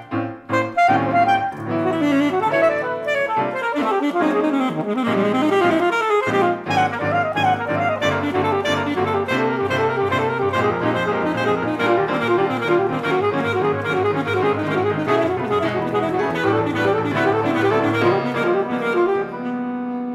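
Alto saxophone and piano duo playing a fast, busy passage of rapid note figures over low piano bass. Near the end it thins to a held chord that fades away.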